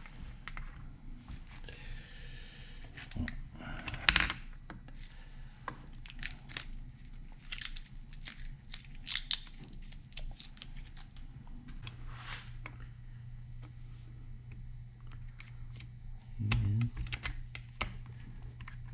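Scattered small clicks and taps of metal engine parts being handled, the loudest a knock about four seconds in, as a chainsaw piston is fitted onto its connecting rod. A steady low hum runs underneath.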